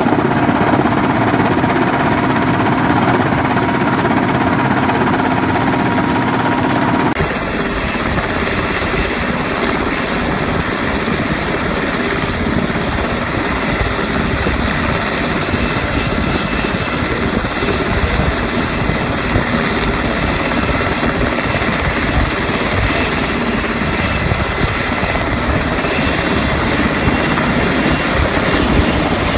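Helicopter turbine and rotor drone heard from inside the cabin, steady with fixed tones. About seven seconds in it cuts to a Sikorsky UH-60 Black Hawk running close by with its rotor turning, a loud, dense rotor and turbine noise with a rapid blade beat.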